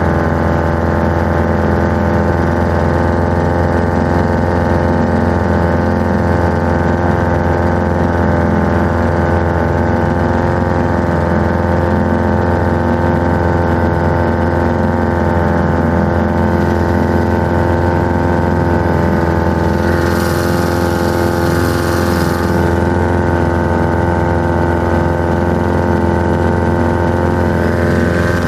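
A 1947 Johnson TD-20 5 hp two-cylinder two-stroke outboard motor running steadily at one speed, pushing a small boat along on its first test run. A brief rush of hiss comes in about three quarters of the way through.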